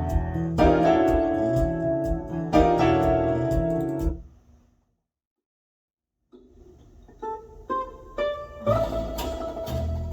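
Recorded music: a song ends and fades out about four seconds in, followed by a second and a half of silence. A new song then starts with single plucked guitar notes, and the full band comes in near the end.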